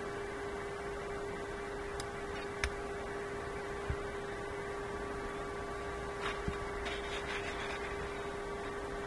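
A steady electrical hum with one constant tone, over which come a handful of light clicks and taps from small parts of a ratchet's reversing lever being handled while it is greased.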